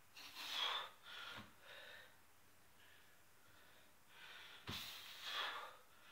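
A man breathing hard while doing chin-ups: forceful exhales and gasping inhales come in a cluster of three in the first two seconds and again from about four to six seconds in. Two low knocks come about a second and a half in and near five seconds.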